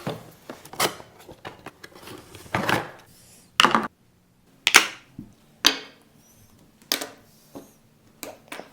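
Clicks and knocks of a toy playset being unpacked and its plastic pieces and Play-Doh cans handled: about a knock a second, irregular, with a brief scraping rustle early on.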